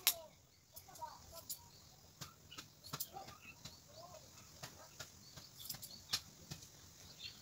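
Scissors snipping hair during a home haircut: short, sharp clicks at an uneven pace, a few a second.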